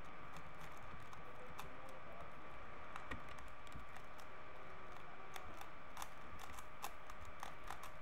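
3x3 Rubik's cube being turned quickly by hand through a PLL algorithm: its plastic layers click in quick, irregular runs that get busier in the second half. A steady faint electrical hum lies under it.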